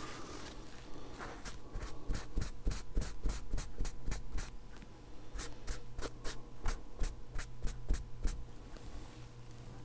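Cloth rubbing back and forth over a firearm's metal receiver, wiping excess paint from around its freshly colour-filled engraved markings: quick repeated scrubbing strokes with a brief pause about five seconds in.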